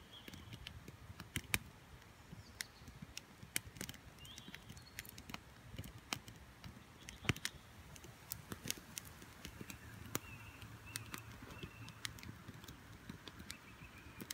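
Wood campfire crackling with sharp, irregular pops, with faint short twittering calls of small birds flying low overhead, which the camper takes for sand martins.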